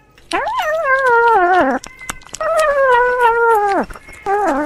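A cat meowing: two long, wavering meows, each dropping in pitch at the end, and a third starting near the end.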